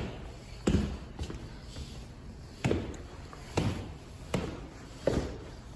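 Footsteps going down stairs: heavy, sharp steps about one a second, a little uneven in spacing.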